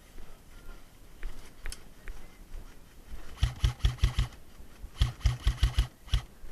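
Airsoft gun firing two quick strings of about five or six shots each, a second or so apart, then one more shot near the end.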